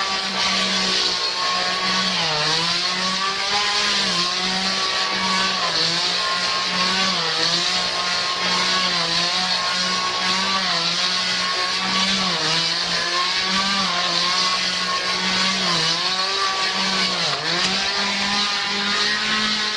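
Two-stroke chainsaw running at high revs, its pitch sagging briefly every second or two as the chain bites into hedge branches and then recovering.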